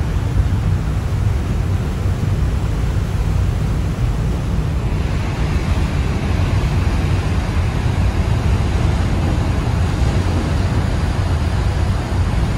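Wind buffeting the microphone on the deck of a large ferry under way, over a steady deep rumble and rushing water. About five seconds in a brighter hiss of churning wake water grows and holds.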